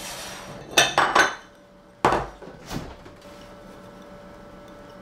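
Dishes and kitchenware knocking and clinking as they are handled and set down on a steel worktop: a quick cluster of knocks about a second in, then two more single knocks. After that only a faint steady hum.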